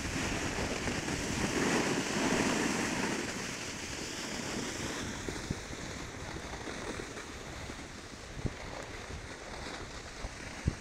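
Wind rushing over a phone's microphone, with the hiss of sliding on snow, while moving down a ski slope; the rush eases off after about five seconds.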